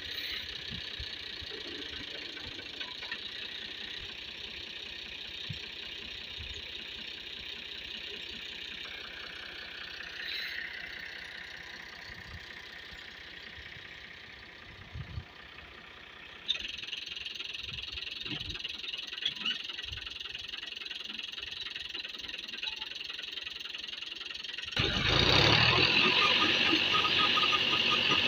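Fiat 480 tractor's diesel engine running steadily while driving a water pump, its sound shifting at edits. About 25 s in it turns suddenly much louder: engine and churning, splashing water at the pump.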